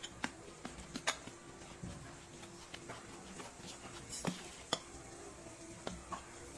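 Steel spoon stirring thick semolina and curd batter in a stainless steel bowl, with scattered clinks and taps as the spoon knocks the bowl's sides and rim, two of them louder past the middle.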